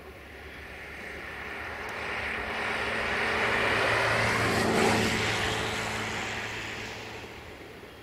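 A vehicle passing by: its noise rises steadily to a peak about four to five seconds in, then fades away.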